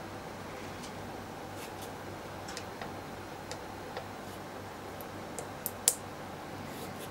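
Quiet steady hum with scattered light clicks, the sharpest about six seconds in.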